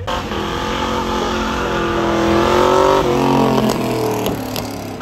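Ford Mustang fastback in Shelby GT500 trim, its V8 accelerating past close by: the engine note climbs for about three seconds and then drops in pitch as the car goes by.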